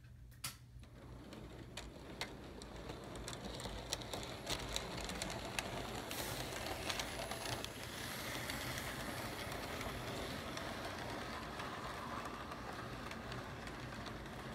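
HO scale model steam locomotive and freight cars rolling along the track past the microphone: a steady whirring rumble that grows louder over the first few seconds as the train approaches, with scattered sharp clicks from the wheels on the track in the first half.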